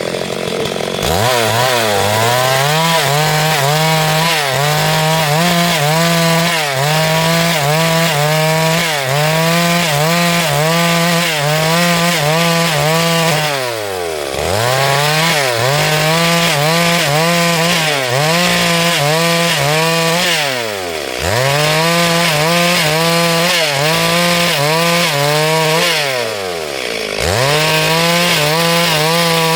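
Chainsaw at full throttle ripping lengthwise through a log, its pitch wavering as the chain loads in the wood. It revs up about a second in, then three times drops back toward idle for a moment and opens up again, about halfway through, two-thirds through and near the end.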